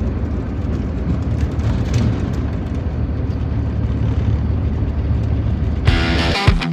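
Steady low rumble of a vehicle on the road, with no distinct events. Just before the end, distorted electric-guitar rock music comes in with a beat.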